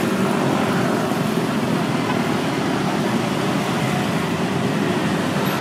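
Steady city road traffic: motorcycles and cars passing in a continuous rush of engine and tyre noise.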